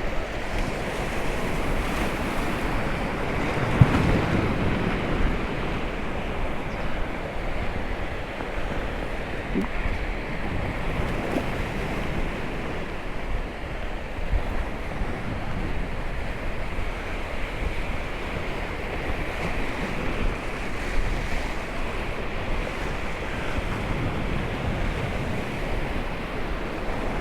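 Steady wash of sea surf with wind buffeting the microphone, swelling briefly about four seconds in.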